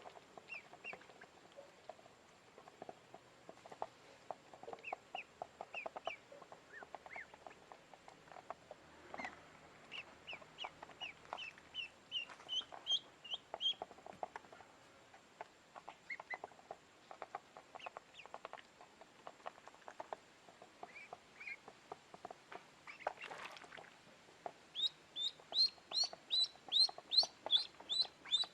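Ducklings peeping: short, high chirps that fall in pitch, scattered at first, then a fast, louder run of peeps near the end, over soft scattered clicks.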